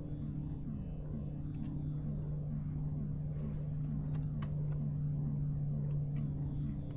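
A steady low hum with a faint regular pulse about three times a second, the droning ambience of the spaceship's interior, with a few faint clicks.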